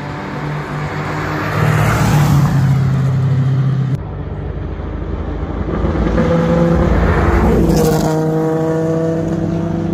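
Historic rally car engines at speed passing close by, twice, with an abrupt cut between the two passes about four seconds in. The second car's engine note builds and then drops in pitch as it goes past near the end.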